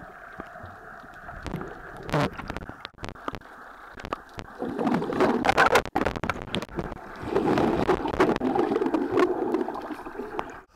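Water heard from under the surface, dull and muffled, with light sloshing and clicks, then loud bubbling churn of a body plunging in from about four and a half seconds in, and a second, longer churn from about seven seconds in.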